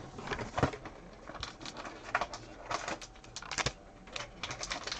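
Cardboard trading-card box and card packs being handled and opened: irregular rustling and small clicks.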